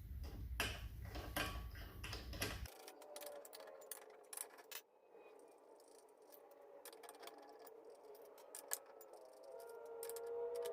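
Faint, scattered metallic clicks and clinks of lug nuts and a tire wrench being handled while the wheel comes off.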